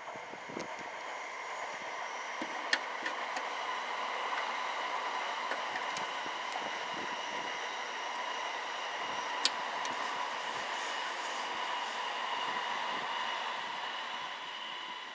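JR E217 series electric commuter train running past on the tracks. The running noise builds, holds and fades near the end, carrying a steady high ringing tone and two sharp clicks.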